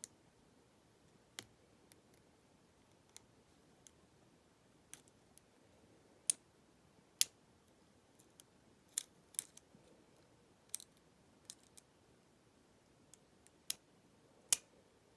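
Lock pick and tension wrench working the pin stack of a Cisa 220 brass padlock: scattered, irregular sharp metallic clicks as pins are lifted and set, with two louder clicks about halfway and near the end.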